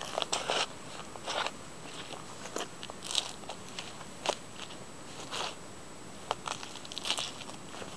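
Adamant work boots treading and grinding on a pile of vegetable peelings on a rubber mat, crushing them with irregular crisp crunches and crackles separated by short pauses.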